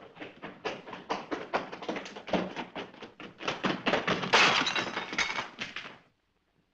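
A rapid run of knocks and thuds, about five a second, building to a loud crash about four seconds in, then cutting off suddenly about six seconds in.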